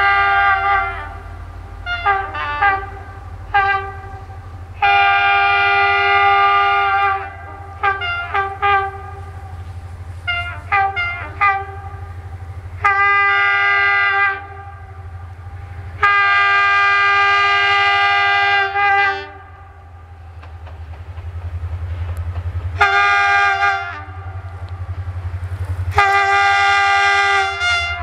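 Locomotive horn sounding over and over, mixing long blasts of one or two seconds with quick runs of short toots. Under the horn is a steady low engine rumble that grows louder in the second half as the train comes nearer.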